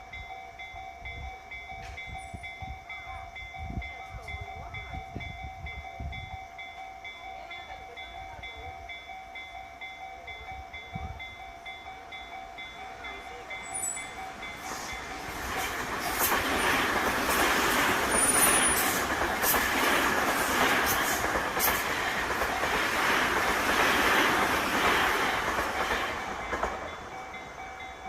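Japanese level-crossing warning bell ringing steadily. About halfway through, a Seibu Ikebukuro Line train passes over the crossing, its running noise and wheel clatter rising to drown the bell. Near the end the train noise fades and the bell is heard again.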